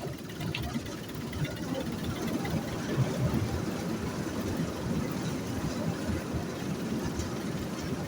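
Wheat thresher running steadily on a trial run, checked before threshing begins.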